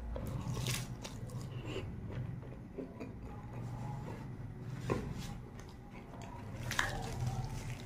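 Close-up mouth sounds of a man biting into a piece of fried puri bread and chewing it with keema curry, with a few short sharp clicks. A steady low hum runs underneath.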